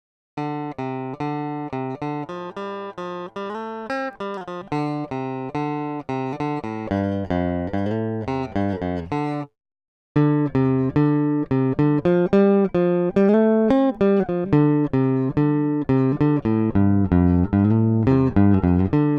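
Clean Strat-style electric guitar playing a picked single-note phrase, then after a short silence a second, louder pass. This is an A-B comparison of Squier stock pickups against Fender '72 reissue pickups.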